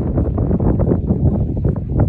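Wind buffeting the phone's microphone: a loud, gusty low rumble.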